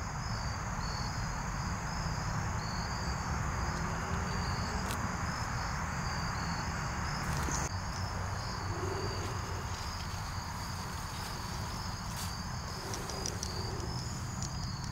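Insects chirping in a steady, rapidly pulsing high trill over a steady background rush, with a couple of faint clicks near the middle.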